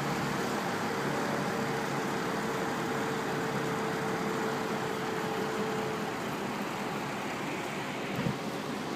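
Lonergan belt-driven box fan running steadily, its 1/8 hp Marco shaded-pole motor turning the blades through a belt: an even rush of air with a faint hum that fades out about six seconds in.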